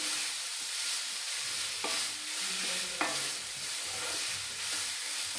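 A grated amla, sugar and ghee mixture sizzling in a pan over a medium gas flame while it is stirred. Two sharp knocks of the stirring utensil on the pan come about a second apart.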